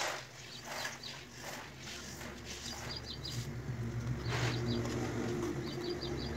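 Birds chirping in quick little runs of high calls, with a few short swishing noises, over a low steady hum that grows louder from about halfway.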